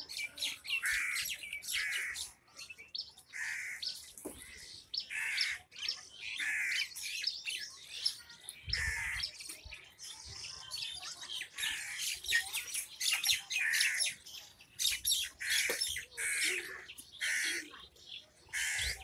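Birds calling over and over: a steady run of harsh squawking calls, several a second, with higher chirps mixed in.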